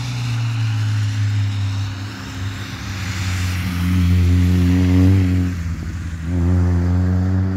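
Rally car engine running hard as the car takes a bend and passes close by, its pitch rising from about four seconds in, dropping briefly near six seconds as the driver lifts or changes gear, then climbing again as it pulls away.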